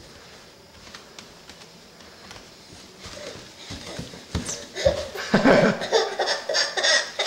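A toddler laughing and squealing in loud bursts from about four seconds in, after a quieter stretch with a few faint taps.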